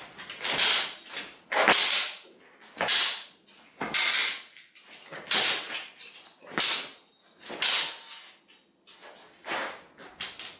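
Longswords clashing as cuts are parried: about eight sharp clacks roughly a second apart, each with a brief ringing after it, the last ones fainter.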